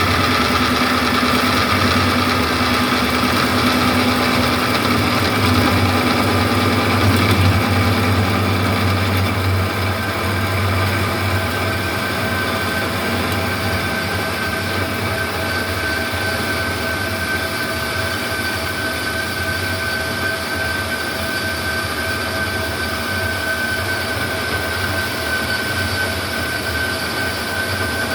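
Doall metal-cutting bandsaw running steadily: a motor hum with several high whines. About ten seconds in the low hum drops and a steady high whine comes up more strongly.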